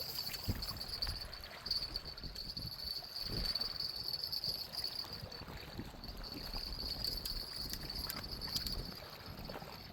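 Steady high-pitched insect trill that fades briefly about halfway through, over a low rumbling noise.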